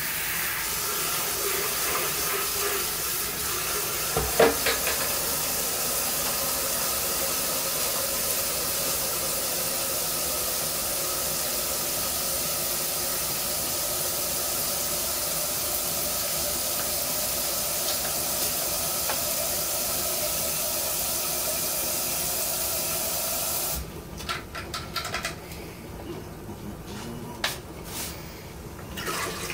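Kitchen tap running in a steady rushing hiss, with a single knock about four seconds in, shut off abruptly about 24 seconds in.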